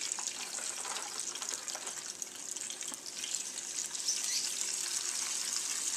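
Smoked sausage frying in hot oil in a saucepan: a steady sizzle with fine crackling. About four seconds in, raw sweet potato sticks go into the oil and the sizzle grows a little louder.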